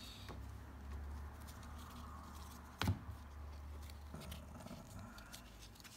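Glossy 1993-94 Upper Deck basketball trading cards being handled and laid down on a table, with one sharp tap a little before three seconds in, over a low steady hum.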